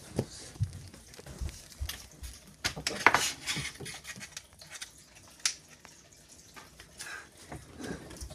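Quick footsteps on a wooden floor with knocks from the handheld camera being carried. About three seconds in comes a loud cluster of clattering handling noise, followed by scattered clicks and rustles at a computer desk.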